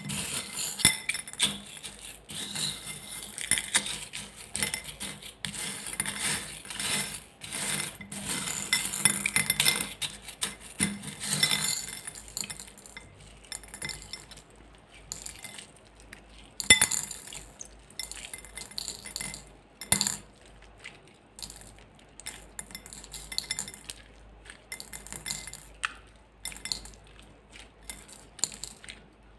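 Small beads clinking and rattling against a glass bowl as a hand stirs them through slime. After about twelve seconds the clicking thins out to scattered clicks as the slime is lifted and squeezed by hand.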